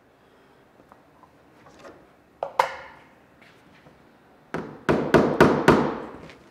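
Hammer blows on a thin plywood pattern sheet: a couple of knocks about two and a half seconds in, then a quick run of about five sharp strikes, roughly four a second, near the end.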